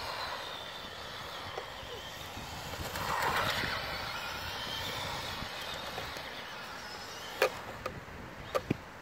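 Radio-controlled lowrider truck's black sport can electric motor whining, with its tyres running on asphalt. The sound swells about three seconds in, and a few sharp clicks come near the end.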